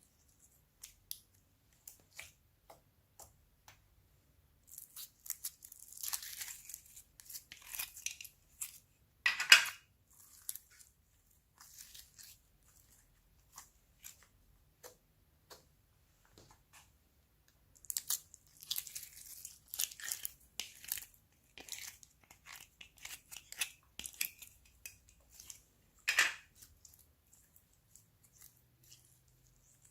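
Slime being squished and stretched by hand, with wet crackling and small clicking pops coming in two busy stretches. Two sharper, louder pops stand out, one about a third of the way in and one near the end.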